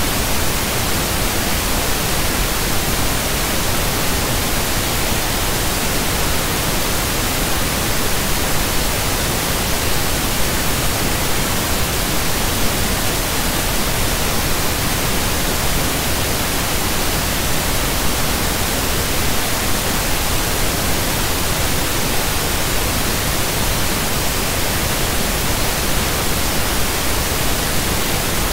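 Loud, steady hiss of static noise, spread evenly from low to high pitch, with no speech or other sounds over it.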